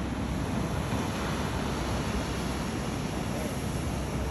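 Steady wind and surf noise, with wind rumbling on the microphone.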